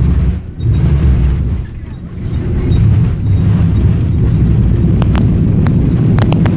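Airliner landing: a loud, heavy low rumble that dips briefly twice, with a few sharp clicks near the end.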